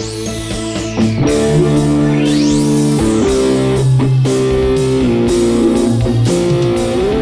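Instrumental organ tarling dangdut music: electric guitar over electric organ keyboard with held chords. A whooshing sweep rises and then falls about two to three seconds in.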